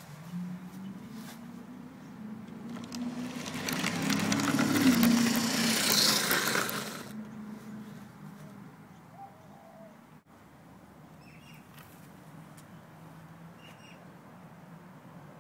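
HO-scale model train running past: a steady electric-motor hum with wheels rattling on the rails, building to its loudest about five seconds in and falling away by about seven seconds, the hum carrying on faintly afterwards.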